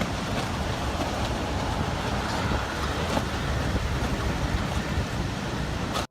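Hurricane-force wind buffeting the microphone: a steady, dense rush with a heavy, fluttering low rumble.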